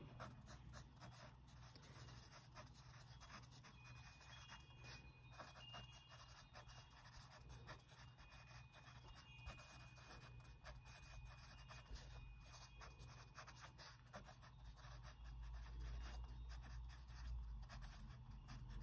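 Ballpoint pen writing by hand on workbook paper: faint, quick scratching strokes.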